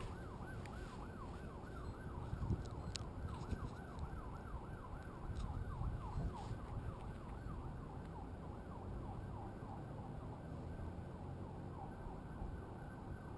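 A faint siren-like tone sweeping up and down about three times a second, over a low rumble of wind on the microphone.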